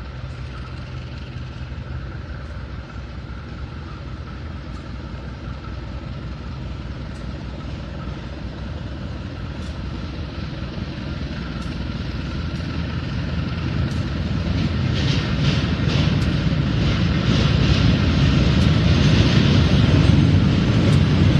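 Diesel-electric locomotive approaching, its engine drone growing steadily louder. From about fourteen seconds in, a quick run of clicks from the wheels on the rails joins it.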